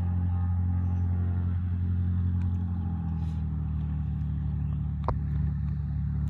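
An engine running steadily, a low hum that shifts slightly in pitch about two seconds in, with one short knock about five seconds in.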